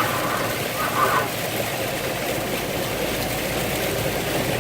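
A vehicle's engine idling under a steady hiss of rain.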